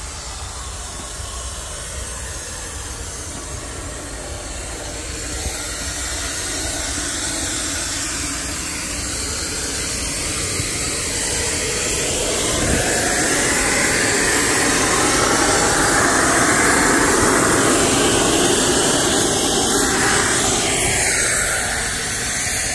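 Compressed air hissing steadily out of a loose air hose between two Via Rail passenger cars, over a steady low hum. The hiss grows louder about a third of the way in.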